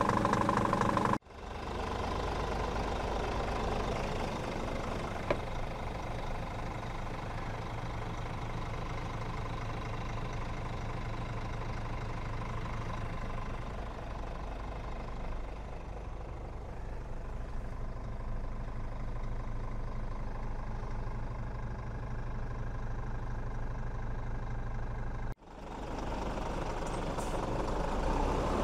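Scania R450 tractor unit's diesel engine idling steadily. About a second in it becomes quieter and muffled, as heard from inside the cab, and it is fuller again near the end.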